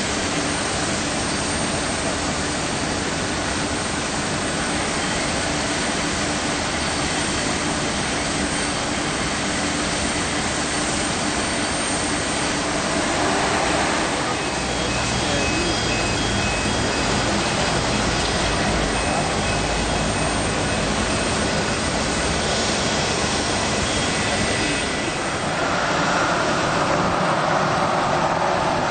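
Steady jet engine noise on an airport apron, a continuous rushing sound with faint high whining tones, swelling somewhat near the end.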